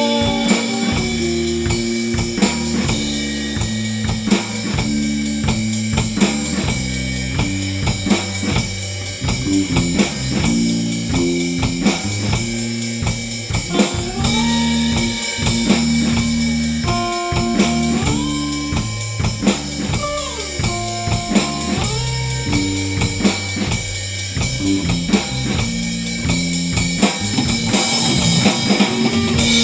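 Rock band playing an instrumental passage live: drum kit keeping a steady beat under electric guitar and bass, with a lead guitar sliding between notes partway through.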